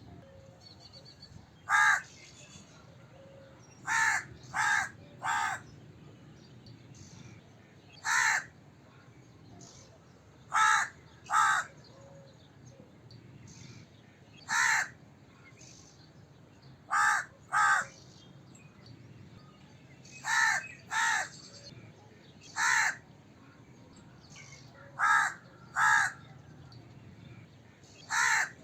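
A crow cawing: short caws, singly or in runs of two or three, every few seconds.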